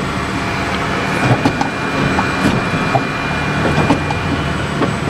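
Steady mechanical hum and rumble, with a few faint clicks.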